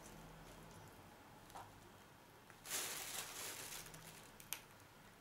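Hands shelling fresh green pods: faint rustling and small snaps, with a louder crackling rustle about three seconds in.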